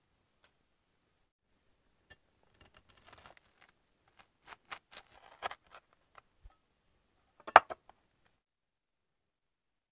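Chef's knife crunching through the toasted crust of a grilled cheese sandwich on a wooden cutting board: a run of crisp crackles and clicks, followed about two-thirds of the way in by a sharp knock, the loudest sound, as the knife meets or is set down on the board.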